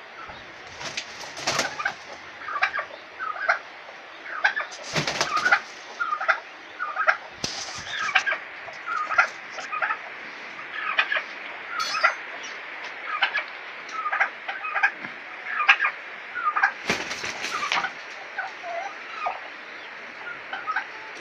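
A tom turkey and a rooster calling in short clucks, about one or two a second. Wings flap noisily four times, about a second or so each, near the start, at about five and seven seconds, and again near the end.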